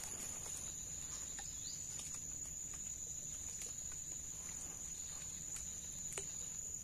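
A steady, high-pitched insect call, one unbroken tone that holds without a pause, with a few faint clicks over it.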